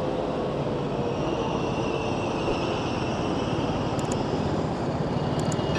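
City bus engine running steadily close by as the bus moves along the street, over a constant wash of motorbike and road traffic. A steady low hum sits under the noise.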